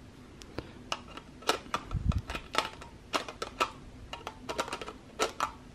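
Irregular string of small sharp clicks and taps as a 16 mm lens is handled and fitted onto a Zenmuse X7 camera's lens mount, with one dull knock about two seconds in.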